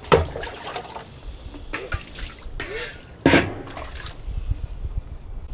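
Water splashing and dripping as hands work in a tub and a steel bowl of water, with two louder splashes, one right away and one about three seconds in.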